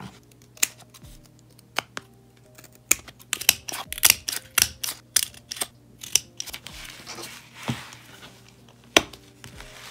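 Handheld binder hole punch clicking as it punches holes along the edge of a paper page: a run of sharp clicks, closest together in the middle. Paper rustles, and one loud click comes near the end.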